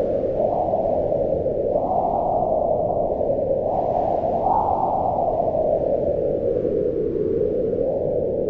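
Howling mountain wind: a steady rush of noise whose pitch slowly swells and falls in gusts, rising about two seconds in and again around four and a half seconds, then easing off.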